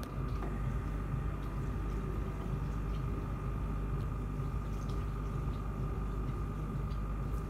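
Pneumatic leg-compression (pressotherapy) machine running, its air pump giving a steady low hum with a thin high tone above it while it feeds air through the hoses into the inflatable leg boots.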